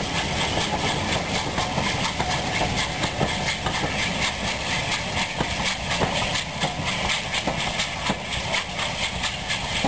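Passenger coaches of a steam-hauled train rolling past, their wheels clicking irregularly over the rail joints, with the steam locomotive's exhaust hissing from the head of the train.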